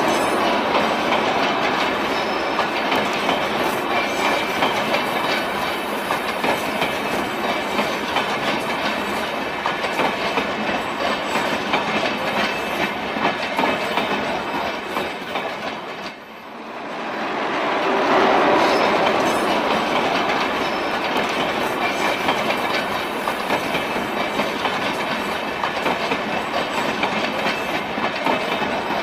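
Passenger train coaches rolling past at speed, wheels clacking over the rail joints under a steady rumble and rush of noise. The sound drops away briefly just past the halfway point, then swells back.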